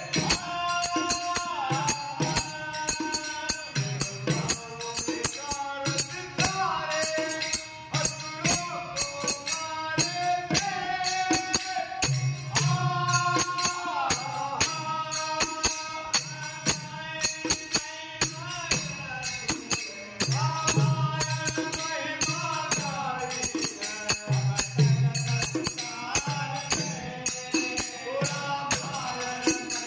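Male voices singing a devotional folk song, accompanied by a harmonium, a dholak drum and small hand cymbals struck in a steady, fast rhythm.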